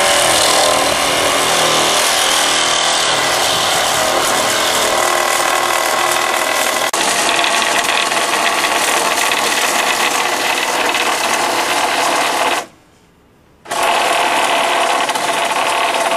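Hand-held power tool running with a rapid mechanical rattle at the bolted joints of timber roof trusses. It stops for about a second near the end, then starts again.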